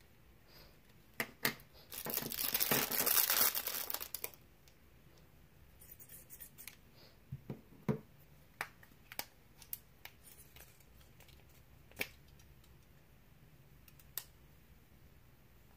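Plastic packaging bags crinkling loudly for about two seconds, then scattered clicks and taps as small plastic parts are handled.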